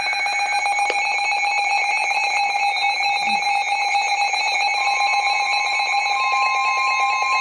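Weather radio alert tones announcing a flash flood warning: a steady electronic alarm tone with a fast buzzing pulse, joined about five seconds in by a second, slightly higher tone.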